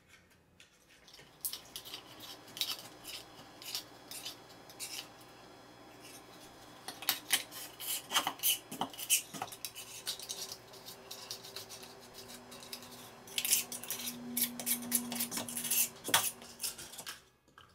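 Metal razor blade scraper scraping old silicone caulk out of the seam between a shower wall and floor: quick, irregular scrapes and clicks of the blade against the hard shower surface, starting about a second in.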